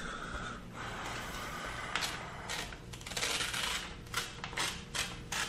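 Scattered light clicks and knocks over a low steady hum, with a short noisy swish about three seconds in.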